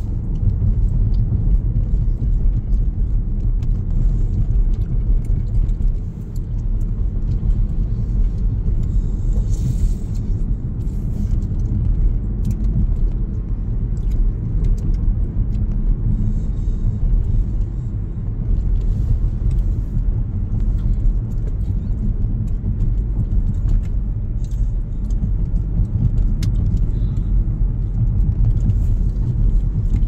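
Steady low rumble of a car driving along a paved road, tyre and engine noise as heard from inside the cabin.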